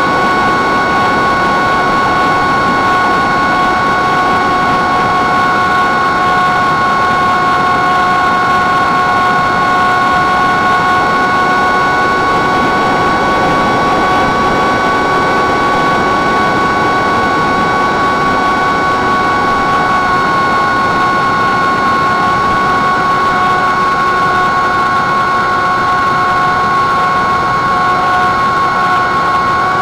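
Brushless electric motor and propeller of an FPV flying wing, an X-Foot 2207 2600kv motor, running at a steady cruise throttle as it flies. It makes a constant whine of several fixed tones over a hiss of rushing air, with the pitch dipping only slightly about twenty seconds in.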